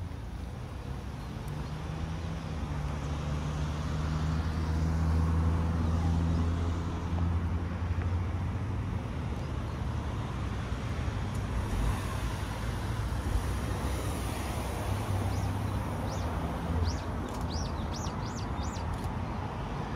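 Road traffic: a vehicle's low engine drone swells over the first few seconds and then eases. Near the end, small birds chirp repeatedly over it.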